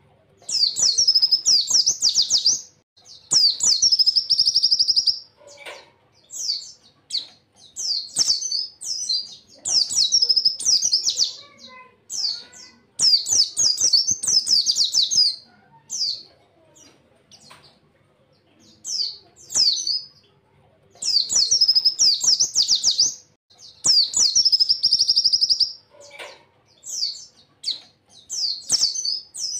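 Pleci (white-eye) singing: a run of high, rapid twittering song phrases of a second or two each with short pauses between, several ending in a fast buzzing trill. Faint clicks sound beneath the song.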